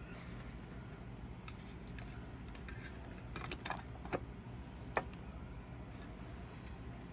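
A Stalogy B6 notebook being handled and straightened on a paper-covered table, with a few sharp taps and clicks of fingers and nails on the cover about halfway through, over a steady low hum.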